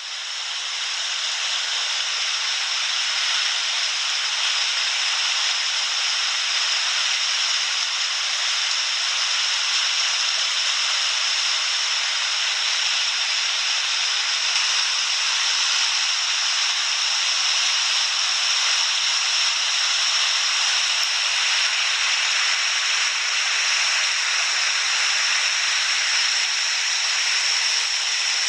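Swollen creek in flood, muddy floodwater rushing and churning past in a steady, unbroken hiss.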